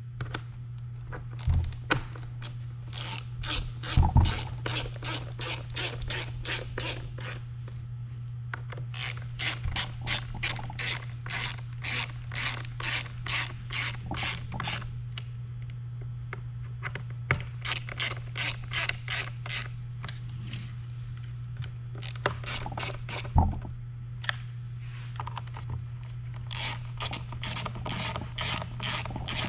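Hand ratchet clicking in fast runs of a few seconds each as bolts are driven during reassembly of a Onewheel XR, with a few louder knocks from tools or parts being set down between runs. A steady low hum runs underneath.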